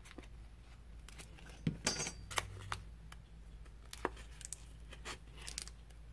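Scattered light clicks and scrapes of a plastic card working around the edge of a Samsung Galaxy S6's glass back cover, prying it loose from its adhesive. The loudest cluster of clicks comes about two seconds in.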